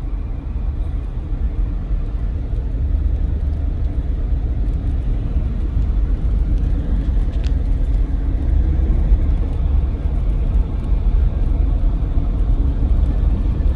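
Steady low road rumble and tyre noise of a small car cruising at highway speed on Cooper Discovery all-terrain tyres, heard from inside the cabin, over sanded, partly slushy pavement. A faint tick sounds once about halfway through.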